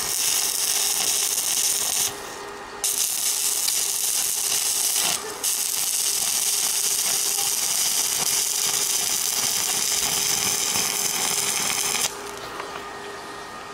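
Stick-welding arc crackling steadily as the rod burns along a crack being welded. The arc breaks off briefly twice early on and stops about twelve seconds in.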